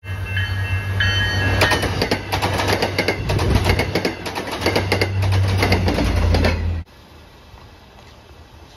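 Bilevel commuter rail coaches passing close by, their wheels clacking rapidly over the rail joints above a steady low rumble, with high ringing squeals on and off in the first second and a half. The sound cuts off abruptly near the end, leaving only a faint background.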